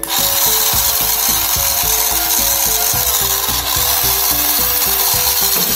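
Small electric drive motor and plastic gearbox of a toy RC car running, spinning the rear wheels freely in the air, with a steady coarse whirr that starts at once as the throttle trigger is pressed.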